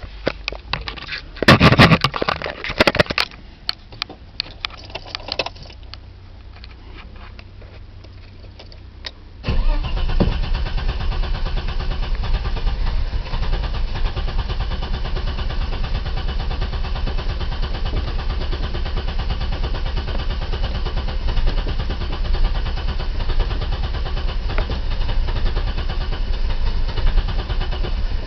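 Clicks and a short loud burst in the first few seconds, then about nine and a half seconds in the BMW 520i's M20B20 inline-six catches on a cold start and keeps running with a very rough, uneven idle. The hard starting and rough running are the sign of a failing fuel pump.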